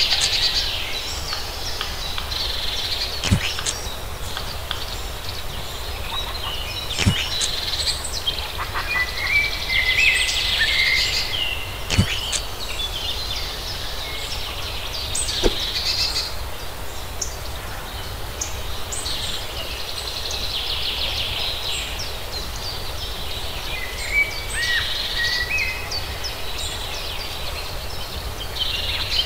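Birds chirping and calling over a shrill outdoor background that swells and fades, with four sharp clicks or taps scattered through it.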